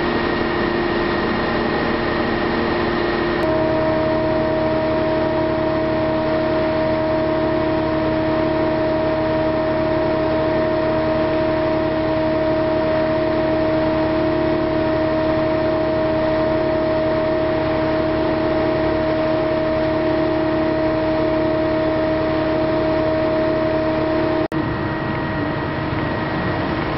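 Heavy machinery diesel engine running steadily, with constant humming tones over it. The tone changes about three and a half seconds in, and the sound cuts out for an instant near the end.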